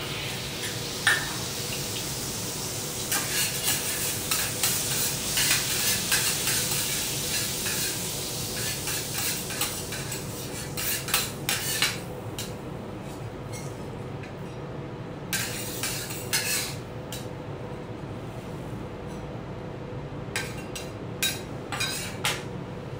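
Butter and soy sauce sizzling on a hot steel teppanyaki griddle as it is poured on and stirred, loudest in the first half and then dying down. Later, metal spatulas scrape and clack against the griddle in three short runs.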